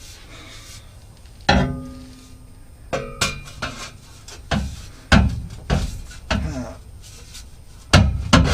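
Irregular metallic clanks and knocks, about ten, some ringing briefly, as a steel exhaust pipe section is worked onto its joint under the truck.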